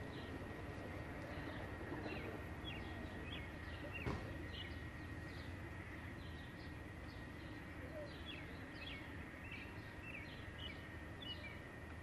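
Small birds chirping in many quick, short notes over a low rumble that slowly fades as a passenger train pulls away. A single sharp knock comes about four seconds in.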